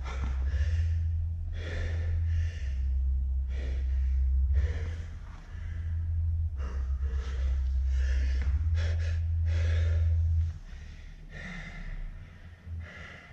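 Laboured breathing: repeated gasping breaths, about one a second, the sign of a breathing problem. A loud, steady low hum runs underneath.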